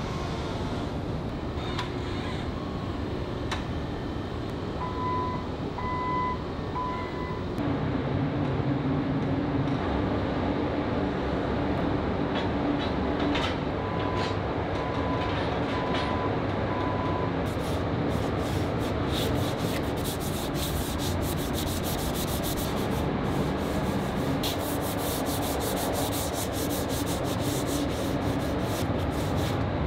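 Steady factory machine hum with short repeated electronic beeps, such as a forklift's warning beeper while it moves a pallet. From a little past halfway, fast repeated hand rubbing strokes over the painted steel cab panel take over.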